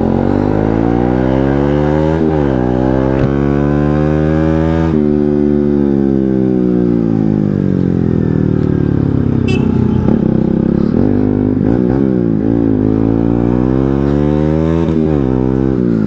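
Benelli 302S motorcycle's 300 cc parallel-twin engine under way, revving up through the gears with a sharp drop in pitch at each upshift about 2.5 and 5 seconds in. It then falls off slowly for several seconds as the bike slows, before climbing and shifting up several more times in the second half.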